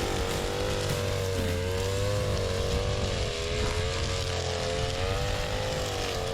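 Small petrol engine of a grass-cutting machine running under load, its pitch wavering up and down every second or so as the cutting load changes.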